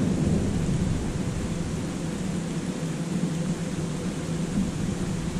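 Thunder rumbling low during a thunderstorm, loudest at the very start, over a steady hiss of rain.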